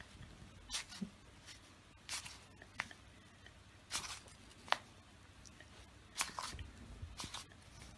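A dachshund puppy sniffing and licking at an ice lolly held out to it. About seven short, soft, wet smacks and rustles come at irregular intervals, with quiet room tone in between.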